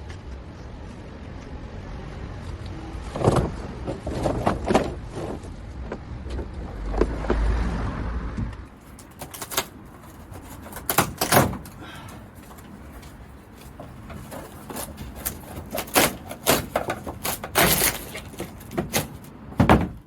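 Irregular knocks, bangs and cracks of plywood lining being pried and pulled out of a van's metal load floor, over a low rumble for the first several seconds. The knocks are sharper and more frequent after a sudden change about nine seconds in.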